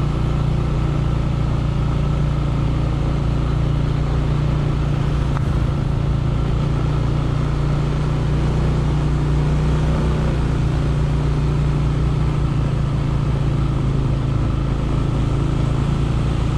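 Motor vehicle engine running steadily at constant revs, an even low drone that holds the same pitch throughout.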